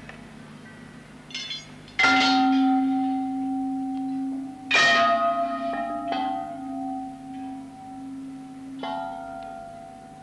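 Bells struck several times, with two loud strikes about two and five seconds in and softer ones between, each ringing on in long, slowly fading tones.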